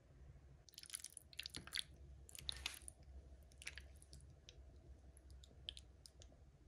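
Fork working through saucy caserecce pasta with mussels in a bowl: faint, wet squishing and clicking in several short bursts over the first three seconds or so, then scattered light ticks.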